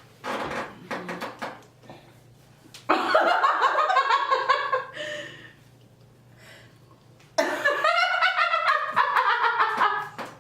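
People laughing in two bouts, a shorter one about three seconds in and a longer one starting about seven and a half seconds in, with a few soft clicks in the quieter stretches between.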